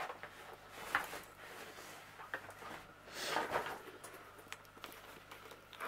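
Rummaging among small craft items: a few light clicks and taps, and a longer rustle about three seconds in.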